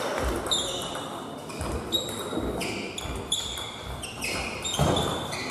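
Rubber-soled shoes squeaking on a sports hall floor: a string of short, high squeaks that step in pitch, mixed with a few dull thuds, with the ring of a large hall.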